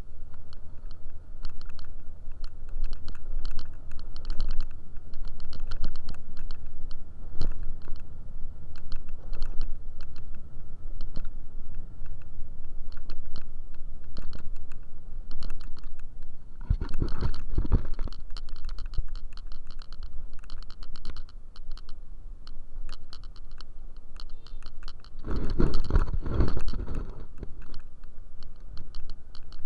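Riding noise from a moving scooter: a rapid, irregular clicking rattle over a steady low rumble, with two heavier gusts of wind buffeting, about 17 and 26 seconds in.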